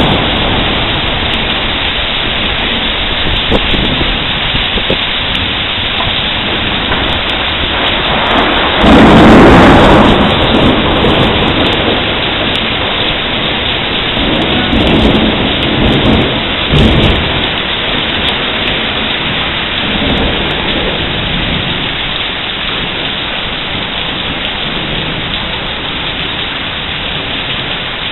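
Thunderstorm: steady rain with a loud clap of thunder about nine seconds in, followed by weaker rumbles of thunder a few seconds later.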